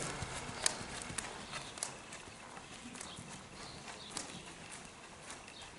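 A horse walking on sand arena footing: soft, irregular hoof falls with occasional sharp clicks.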